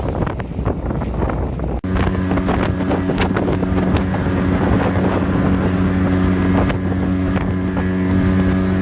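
Motorboat engine running steadily under wind buffeting the microphone; after a cut about two seconds in, the engine's steady pitched drone comes through clearly.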